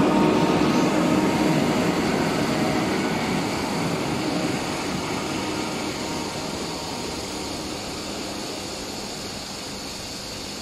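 Serbian Railways class 711 diesel multiple unit pulling away, its engine and wheels on the rails running steadily and fading gradually as it moves off.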